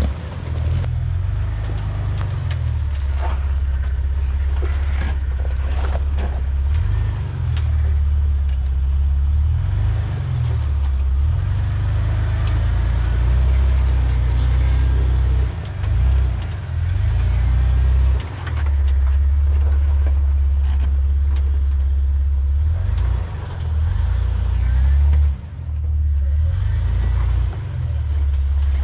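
Jeep Wrangler TJ engine running at low revs as it crawls over boulders. A steady low rumble eases off briefly a few times.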